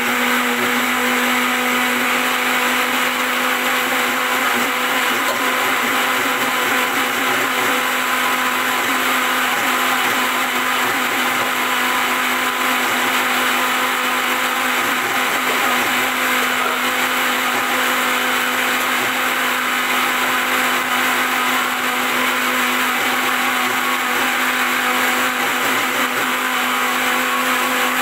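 Electric mixer-grinder running steadily at full speed with a constant hum, grinding chopped bitter gourd and water into a green purée for juice.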